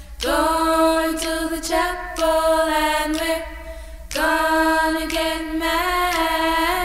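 Music: unaccompanied voices singing long held notes, with a short break about four seconds in.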